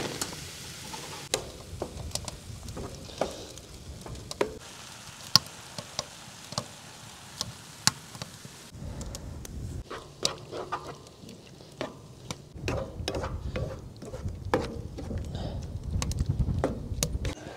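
Tomatoes and green peppers frying in a pan, stirred with a wooden spatula: a sizzle with scattered sharp taps and scrapes of the spatula against the pan, the taps coming more often in the second half.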